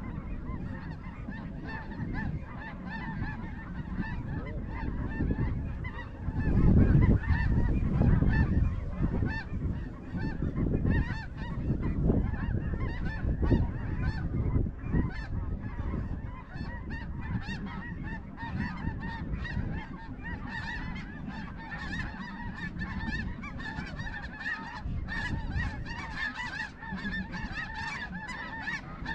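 A large flock of snow geese calling, many high, short honks overlapping in a steady din. A low rushing noise swells about six seconds in and again around twelve seconds.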